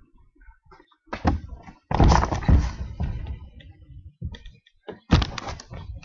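Thuds and knocks of a person jumping and landing on a boat: a knock about a second in, a louder, longer clatter of thumps about two seconds in, and another burst of knocks about five seconds in.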